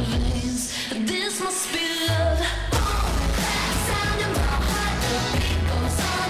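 Pop song with a singing voice over a bass line, played for dancing. The bass drops out for about a second near the start, then comes back.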